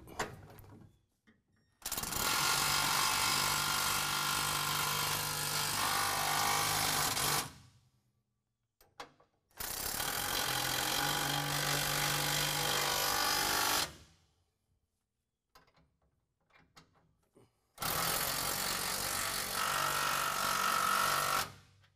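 Cordless impact wrench with a 15/16 socket running bolts in, three runs of about four to five seconds with short pauses between. It is drawing the gooseneck hitch's mounting bolts up into their fastener blocks to pull the hitch up to the frame cross member.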